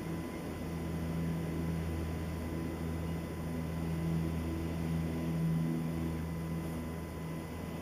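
Long, steady breaths blown into a smouldering bundle of dead dry bracken around a char cloth ember, to coax it into flame, with short pauses for breath near the start and about six seconds in.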